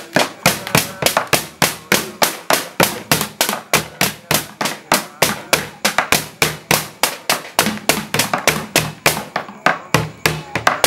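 Tongprek sahur percussion: children beating makeshift drums, a large plastic jerry can among them, with wooden sticks. The sharp strikes keep a steady rhythm of about four to five a second.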